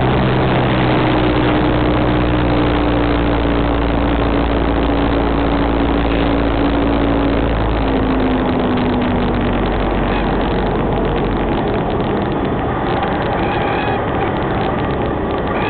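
Cessna 172 Skyhawk floatplane's piston engine and propeller heard from inside the cabin while throttled back for a water landing, running steadily, its note stepping down about eight seconds in. The deep engine hum fades after about twelve seconds, leaving a rushing noise.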